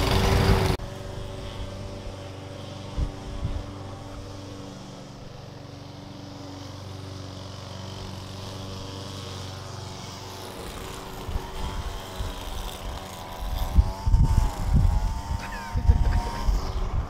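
Gasoline walk-behind lawn mower running close, cut off abruptly under a second in; a quieter steady engine hum carries on, with rumbling bumps on the microphone in the second half.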